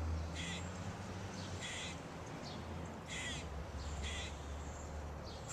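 Outdoor birds calling: about half a dozen short, scratchy calls, a second or so apart, over a steady low rumble.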